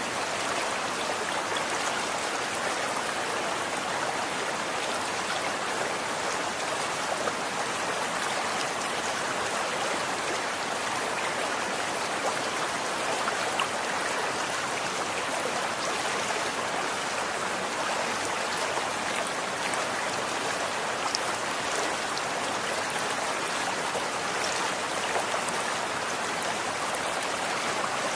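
Running water: a stream flowing steadily, an even rushing with small splashes and drips scattered through it.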